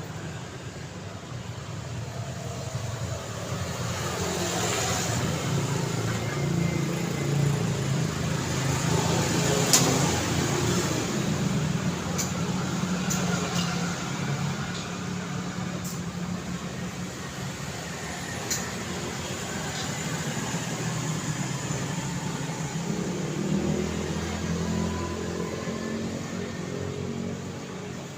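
Road traffic on a city street: vehicles passing with steady engine rumble and tyre noise, swelling as one goes by. A few sharp clicks or knocks cut through, the loudest about ten seconds in.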